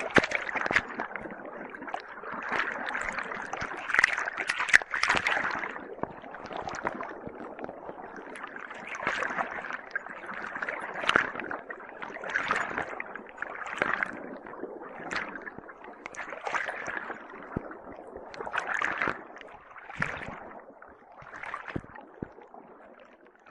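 Aquarium water bubbling and gurgling in uneven swells, with small splashes, from the air line of a sponge filter breaking at the surface. It fades near the end.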